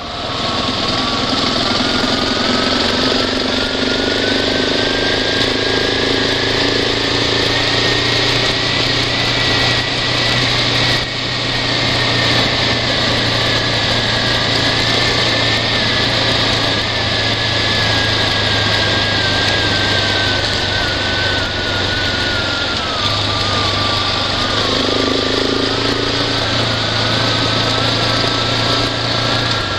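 Vehicle engine running steadily while driving along a dirt road. An engine whine climbs over the first ten seconds or so, eases down, then rises again near the end, over a steady hiss.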